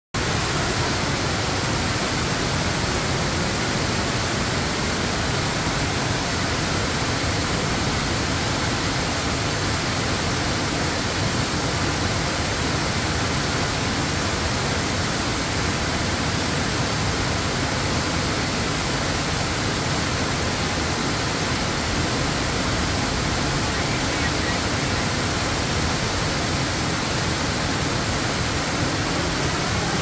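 Steady, unbroken rush of Middle Falls on the Genesee River, a wide waterfall pouring into its gorge.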